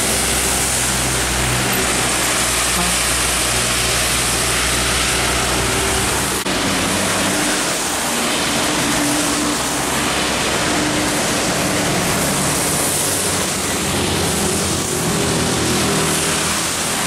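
Trucks and other traffic driving past on a rain-soaked road. A steady loud hiss of rain and tyre spray covers the low sound of the diesel engines. The sound changes abruptly about six seconds in.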